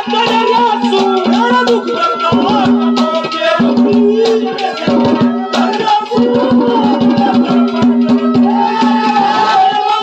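Live Haryanvi ragni accompaniment playing an instrumental interlude: a wavering melody over a held low drone note, with a hand drum and rattling percussion beating steadily underneath.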